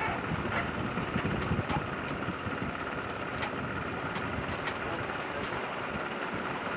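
Boat's outboard motor running steadily under way, with a faint steady whine over an even rushing noise.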